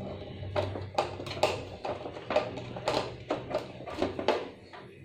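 Small hand screwdriver turning a screw into a printer's plastic scanner carriage, with irregular clicks and taps of the tool and plastic parts.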